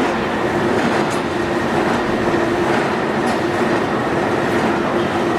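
Continuous carbonization furnace line running: a loud, even mechanical din from the sawdust feed conveyor and the plant's motors, with a steady hum throughout.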